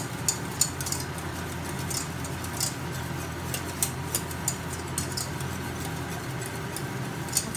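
Wire whisk clicking and scraping against a stainless steel saucepan as a thick flour-and-milk white sauce is whisked. The clicks come irregularly, a couple a second, over a steady low hum.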